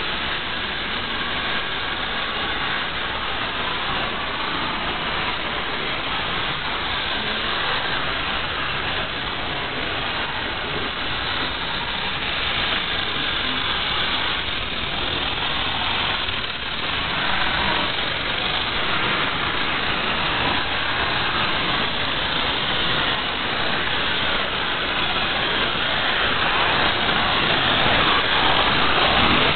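Battery-powered Brio wooden toy train engines, among them a green 8WD rechargeable engine, running with a steady whir of their small electric motors as they climb the wooden track. The whir grows a little louder near the end.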